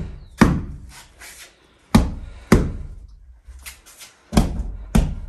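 An old mattress being beaten with a carpet beater to drive the dust out: five hard whacks, the last four in two quick pairs.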